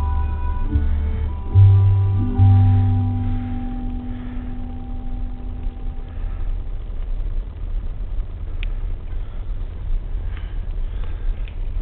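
Music with held notes that fade away about six seconds in, over the steady low rumble of a car driving slowly.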